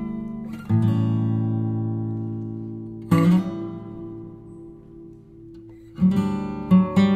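Background music: an acoustic guitar strumming single chords that are left to ring out and fade, three times, then quicker strums near the end.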